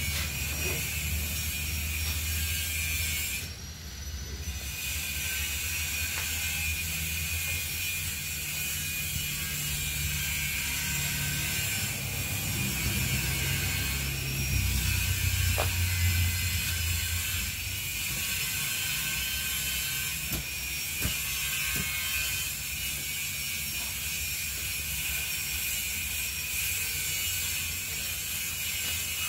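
A steady, high-pitched buzzing trill from insects, which stops for about a second near the start and then carries on unchanged. Under it there is a low rumble and a few faint knocks.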